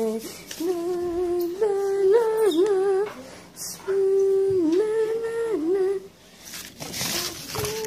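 A person humming a wordless tune in a high voice: three phrases of long held notes, each with small dips in pitch, followed by a few short knocks near the end.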